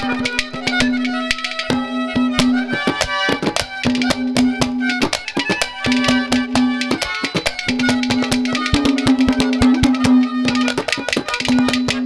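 A Haryanvi ragni ensemble plays an instrumental interlude: a harmonium melody over fast hand-drum strokes on a dholak, with a held low note underneath that breaks off and returns several times.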